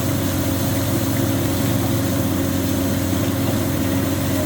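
Engine of borehole drilling machinery running steadily at a constant speed, an even hum with a continuous hiss over it.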